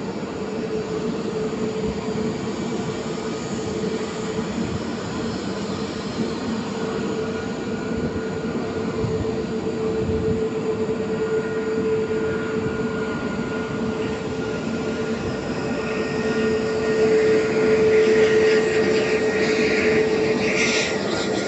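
Jet airliner landing, its engines giving a steady rushing noise with a constant whine, growing louder in the later seconds as it passes.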